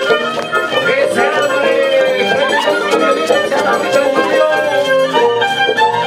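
Violin and Andean harp playing a huayno dance tune: the violin carries the melody over plucked harp notes.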